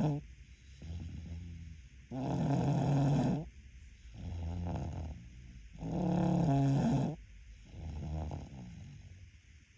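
Snoring in a slow, regular rhythm. Two loud snores, each lasting over a second, come about four seconds apart, and each is followed by a quieter, softer breath.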